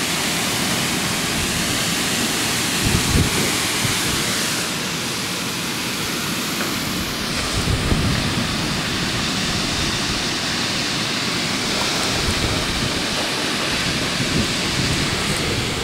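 Heavy downpour: dense rain falling in a steady, loud hiss, with gusts of wind buffeting the microphone.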